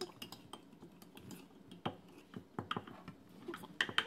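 Light, irregular clicks and taps of kitchen things being handled, a dozen or more scattered through, with a denser cluster near the end.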